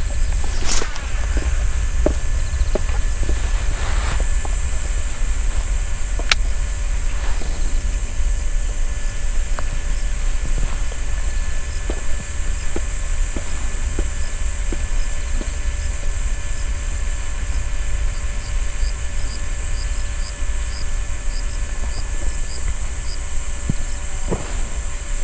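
Insects, likely crickets, chirring steadily at a high pitch over a loud, continuous low rumble, with scattered faint clicks.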